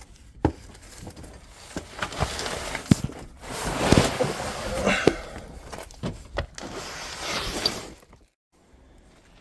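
Scattered sharp clicks and knocks of metal hand tools and parts being handled, with stretches of rustling and scraping in the middle, while a turbocharger is being fitted.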